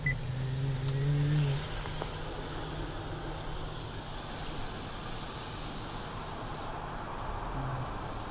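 Automatic car wash heard from inside the car: a steady low machine hum with water washing over the glass, and a louder low droning tone in the first second and a half.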